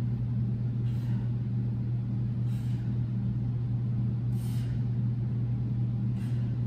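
A steady low hum with a short, sharp breath about every two seconds, in time with the sit-up reps.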